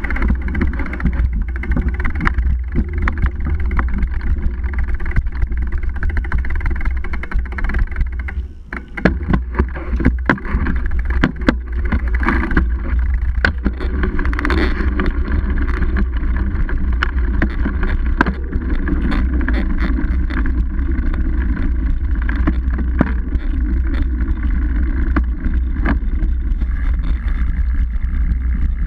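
Mountain bike moving along a rough dirt trail, heard through a seatpost-mounted action camera: a steady low rumble of vibration and wind on the microphone, with many sharp clicks and knocks as the bike and camera mount jolt over the ground, thickest in the first half.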